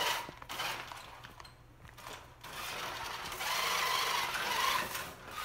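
Toy RC monster truck's small electric motor whirring as it drives over a tile floor, in several spurts, with the longest and loudest run near the end.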